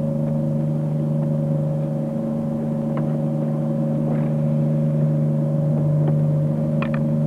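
A naval patrol boat's engines running steadily, a low even drone with a few faint clicks over it.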